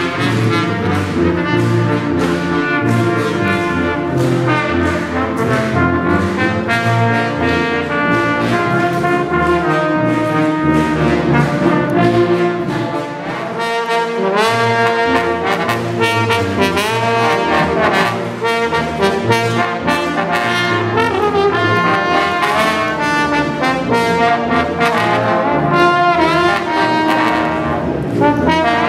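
Brass ensemble of slide trombones and tubas playing a piece together, with short dips between phrases about 13 and 18 seconds in.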